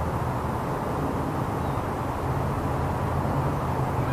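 A motor running steadily with a low hum that shifts up in pitch a little after two seconds in, over outdoor background noise.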